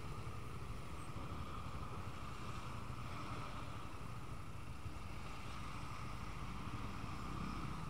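Steady, low-level traffic and motorcycle engine noise, with riders stopped at the roadside as a bus and a van pass.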